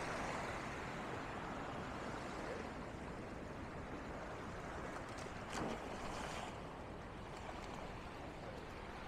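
Surf washing on the beach: a steady rushing, with a brief louder swish about five and a half seconds in.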